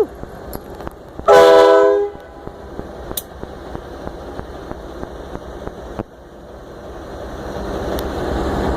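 Locomotive air horn on CSX 5936 giving one short blast, under a second long, about a second in: a chord of several steady notes sounding together. Later a steady noise builds, growing louder over the last few seconds.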